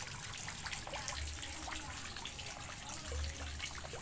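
Water trickling steadily into a garden fish pond, with many small drips and splashes.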